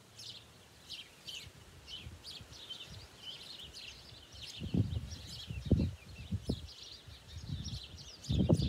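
Small songbirds chirping and twittering in quick, repeated high notes, with a few short low thumps in the second half.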